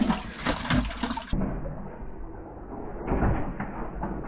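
Water and slush sloshing in an ice-fishing hole as a hand scoops and stirs through it, with a few sharp knocks in the first second.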